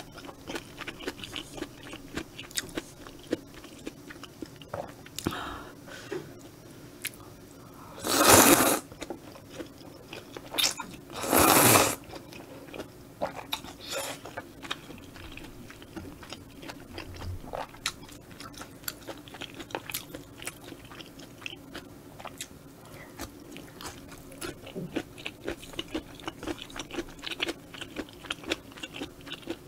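Close-miked eating of spicy stir-fried squid with udon noodles: steady wet chewing with many small clicks, broken by two loud slurps about eight and eleven seconds in.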